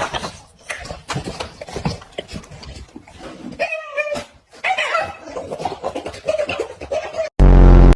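A dog making short, irregular noises, with a brief wavering cry about four seconds in. Near the end a loud, low, steady tone cuts in for about half a second.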